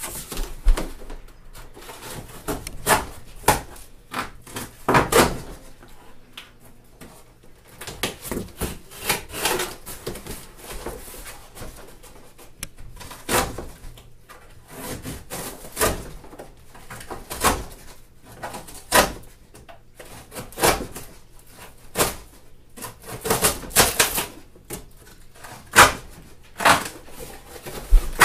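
Irregular knocks, scrapes and rustles of a large cardboard shipping box being worked open by hand around a snugly foam-packed reptile enclosure.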